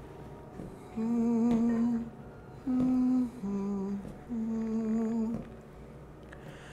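A low voice humming a slow tune of four drawn-out notes: a long note, then a higher and a lower shorter pair, then another long note.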